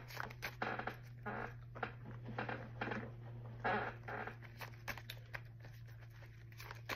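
A deck of tarot cards being shuffled by hand: an uneven run of soft card slaps and rustles, several a second, over a low steady hum.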